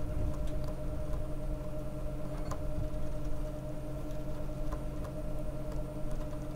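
Steady low hum with a few faint, scattered ticks from thread being wrapped by hand around a lure hook held in a vise.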